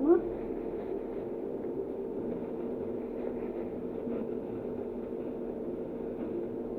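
A steady mechanical hum with several fixed tones, like a motor or fan running. A short rising squeak sounds right at the start.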